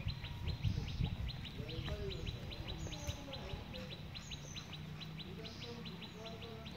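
Birds calling: a steady, rapid chirping at about six notes a second, with scattered short calls over it and a low rumble about a second in.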